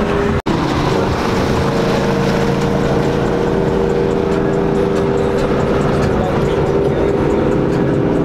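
Steady engine and road drone heard inside a car cruising on a freeway, broken by a brief dropout at an edit about half a second in.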